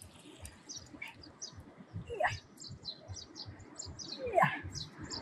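Small birds chirping over and over, with faint knocks from gloved hands working a rubber moped tyre onto its rim. Two short sliding squeaks come about two and four seconds in, the second the loudest.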